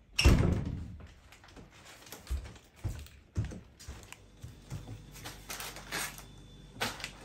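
A wooden cabin door thuds loudly just after the start as it is pushed. Then woven straw baskets and paper bread bags rustle, with light knocks, as they are set down and hung up.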